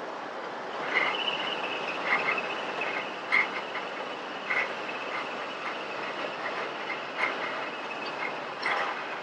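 Road and engine noise of a car heard from inside the cabin while driving. A high, thin, steady whine comes in about a second in, and short squeaks repeat every second or so.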